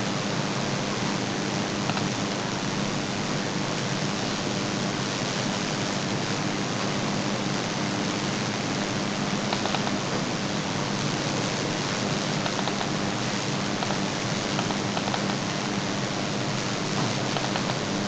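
Steady hiss of microphone background noise with a low steady hum, and a few faint mouse clicks about halfway through.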